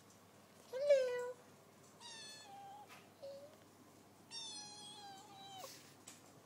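A cat meowing several times: a short meow about two seconds in, a brief small one after it, then a longer meow that drops in pitch as it ends.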